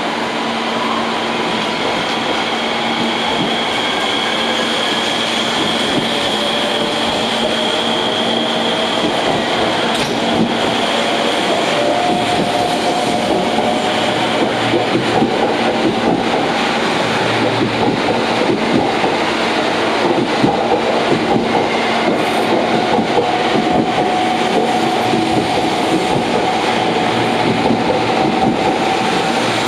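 JR 285 series Sunrise Express electric sleeper train pulling out of a station and slowly gathering speed. Its motor whine rises gradually in pitch over steady running noise, and clacks from the wheels grow more frequent in the second half.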